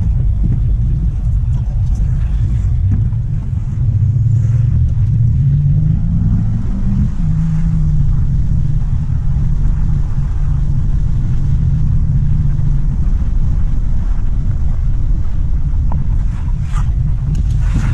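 Car engine and road noise heard from inside the cabin while driving on a wet road: a steady low rumble, with the engine note rising between about four and seven seconds in as the car picks up speed, then holding steady.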